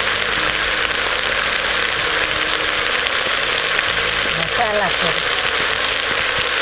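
Mixed vegetables and spice powders frying in oil in a clay pot over a wood fire: a steady sizzling hiss.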